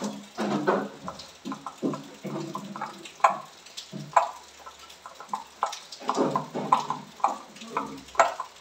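A hand kneading and squeezing soaked soya chunks with chopped tomato and spice powder in a bowl, making many short, irregular wet squishing sounds.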